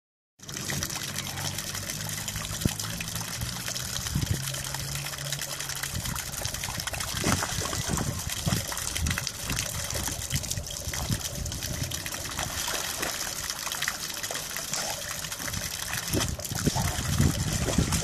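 Thin garden fountain jet trickling and splashing into a small pond, with a dog wading and splashing in the water around the jet; the dog's splashes come irregularly from about seven seconds in.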